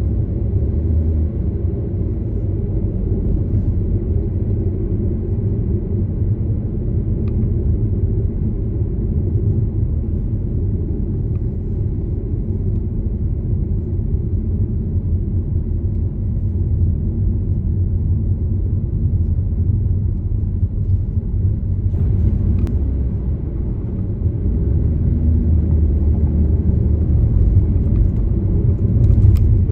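Steady low rumble of a car on the move: road and engine noise, with a couple of faint clicks late on.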